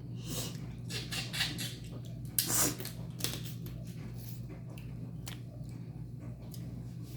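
Close-up chewing and mouth smacking of someone eating crab claw meat, in short irregular bursts with a louder, sharper noise about two and a half seconds in.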